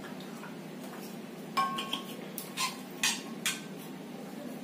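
Stainless-steel water bottle being handled: about five short metallic clinks and knocks, starting about a second and a half in, the first with a brief ring.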